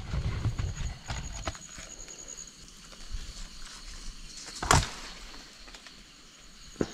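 Leaves rustling and hands handling a large citron as it is pulled from its branch, with a sharp snap about two-thirds of the way through as the fruit comes free. An insect trills faintly and high in the background.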